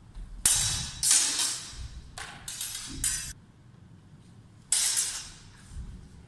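Steel longsword blades clashing and scraping against each other in sparring: a series of sharp metallic hits and grinding binds, the loudest about half a second in, around a second in and just under five seconds in.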